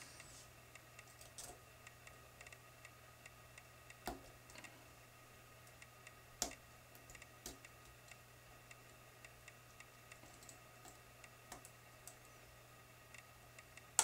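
Faint, scattered metallic clicks and ticks of a lock pick working the pins of a Medeco biaxial mortise cylinder under tension, with a couple of sharper clicks about four and six and a half seconds in.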